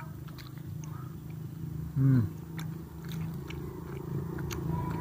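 Close-up chewing of a mouthful of sate kojek, with small wet mouth clicks. About two seconds in there is a short hum that falls in pitch, the loudest sound.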